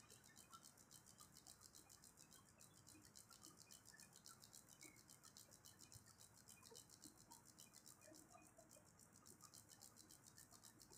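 Near silence: faint room tone with a fast, even, high-pitched ticking hiss.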